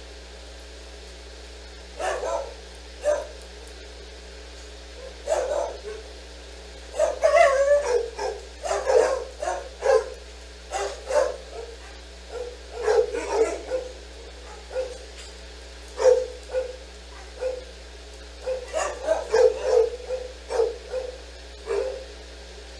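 A dog barking and yipping in an irregular run of short barks, starting about two seconds in, with a few brief pauses.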